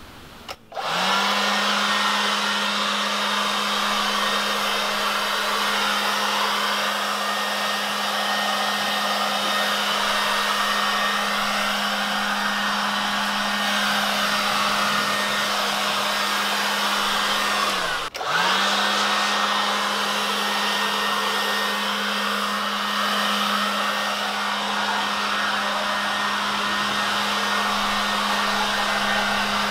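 Wild Badger 20-volt brushless cordless leaf blower running with a steady motor whine and rushing air. It spins up about a second in, sags and cuts out briefly about two-thirds of the way through, then spins straight back up.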